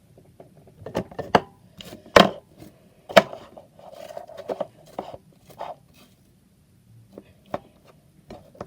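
Hands pressing and stretching a sticky slime mixed with clay, giving irregular sharp sticky clicks and pops, the loudest about two and three seconds in.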